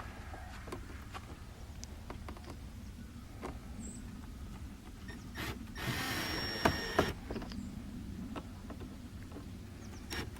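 A cordless drill or driver whirs once, for about a second, about six seconds in, amid scattered small clicks from handling the metal mounting clamps and screws of an underglow light strip.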